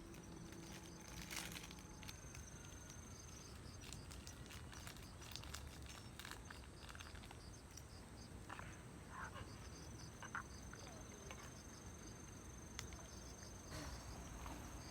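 Faint, steady high trilling of insects, with scattered light clicks and taps.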